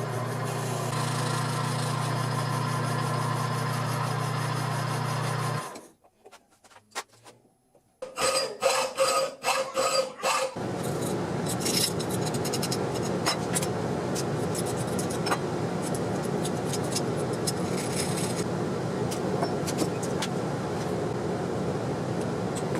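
A power tool running steadily as it works a piece of walnut, cutting off about five and a half seconds in. After a brief silence come a few sharp knocks, then a steady rasping of tool on wood with scattered clicks.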